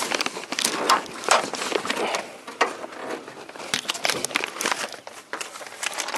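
Irregular clicks, knocks and rustling as the hood of a Ford F-250 pickup is unlatched at the grille and raised.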